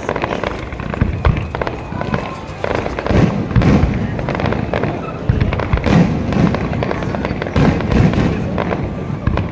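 Fireworks bursting in quick succession: a dense run of cracks and pops with repeated deep booms, growing busier about three seconds in.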